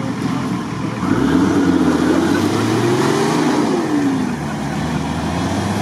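Off-road SUV engine revving up about a second in as it drives close past, the pitch rising, holding, then falling away near the end.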